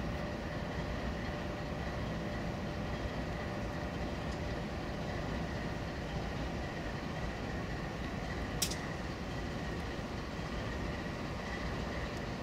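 Amtrak passenger train rolling along the track, heard from on board: a steady rumble with a faint high steady tone and one sharp click about two-thirds of the way through.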